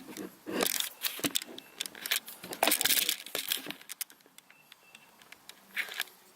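Small metal parts and hand tools clinking and rattling: a dense run of sharp metallic clicks and clatter over the first four seconds, then a few quieter ticks and one short rattle near the end.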